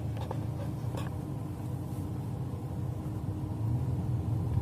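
Low, steady rumble of a vehicle, with a few faint clicks in the first second.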